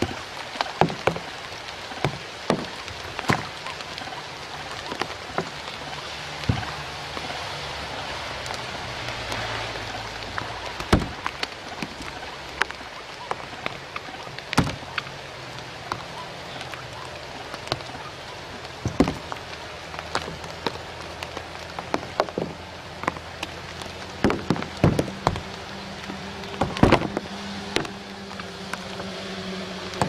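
Rain falling steadily on reeds and leaves: an even hiss with irregular sharp drops striking close by.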